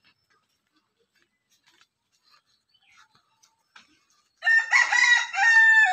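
A rooster crowing once, a loud call starting about four and a half seconds in, in two parts, the second ending in a falling note.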